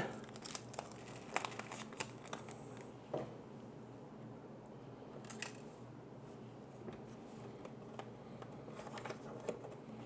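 Quiet handling noises: a dozen or so scattered light clicks and taps with a little rustling, as small parts and packaging are picked up and put down.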